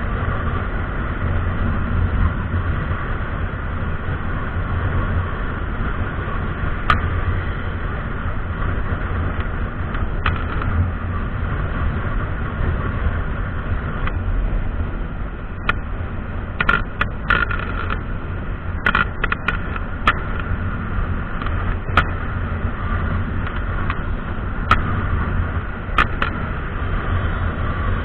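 Motorcycle cruising at highway speed: a steady low rumble of engine, wind and road. In the second half there is a string of sharp clicks and knocks.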